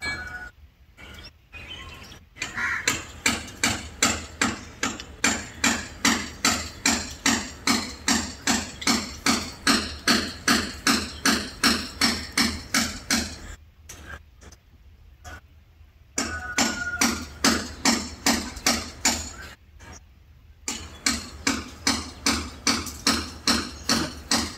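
Steady rhythmic knocking, like repeated hammer blows, about two and a half a second; it stops twice for a few seconds and starts again.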